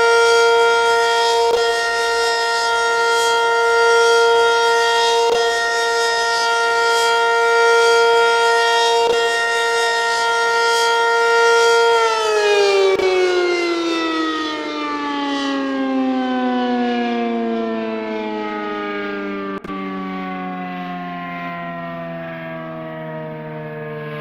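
Federal Signal 500DHTT outdoor warning siren sounding one steady wailing tone at full speed, its loudness swelling every few seconds. About twelve seconds in it is switched off and winds down, the pitch falling slowly and smoothly as the rotor coasts to a stop.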